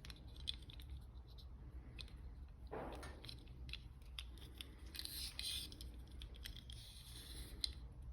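Quiet small clicks and scrapes of hand work on the white wire of an electric bike's all-wheel-drive switch cable, with two short high hisses, about five and seven and a half seconds in.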